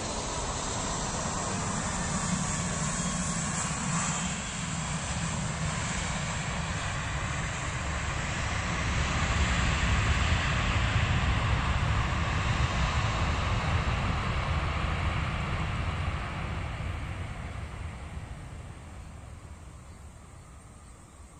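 Twin jet engines of a Citilink Airbus A320-family airliner on the runway, a steady roar with a deep rumble. It swells to its loudest about halfway through, then fades steadily as the aircraft moves away.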